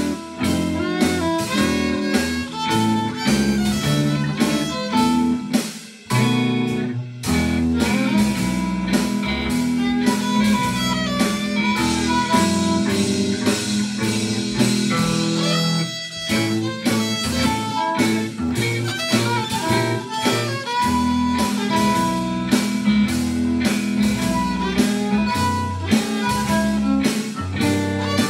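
Fiddle playing a jazzy blues tune over a strummed rhythm-guitar accompaniment with a steady beat, the music dropping out briefly about six seconds in.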